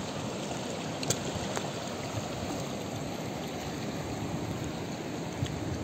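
River water rushing over rocky rapids, a steady wash, with two sharp clicks about a second in.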